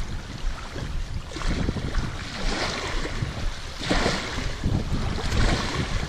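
Wind gusting over the microphone in a low rumble, with small river waves lapping against shoreline rocks; the noise swells twice, in the middle of the clip.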